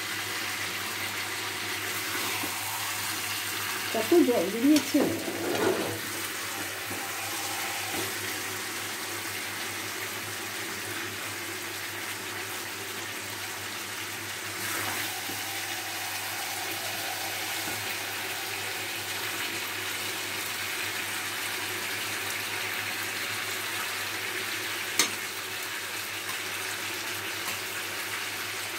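Chicken curry sizzling steadily in its own separated oil in a frying pan, the sign that the kosha (slow browning) stage is well done. A brief voice about four seconds in, and a single sharp click near the end.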